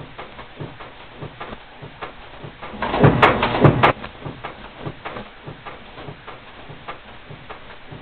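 Automated filter disk punch machine running, its mechanism clicking lightly a few times a second. About three seconds in, a loud burst of about a second holds two heavy strokes of the press.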